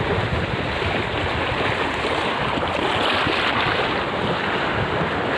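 Choppy sea water washing and splashing against the rocky shoreline in a steady wash, with wind buffeting the microphone.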